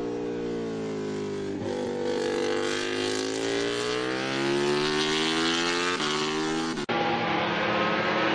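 MotoGP racing motorcycle engine running at high revs, its pitch sagging and then climbing again over a few seconds, with abrupt breaks where it jumps to a different engine note.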